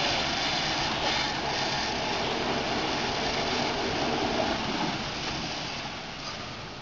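Fire hose nozzle spraying a stream of water onto a burned-out pickup truck, a steady hiss of spray and steam that eases off a little near the end.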